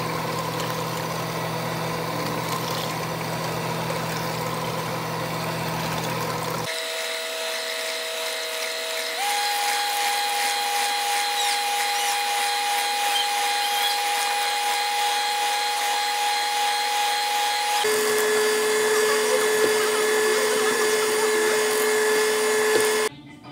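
Electric stand mixer running steadily, its beaters whipping cream, sugar and milk in a steel bowl toward a thick whipped-cream consistency. The motor's tone shifts abruptly three times, and the sound cuts off sharply near the end.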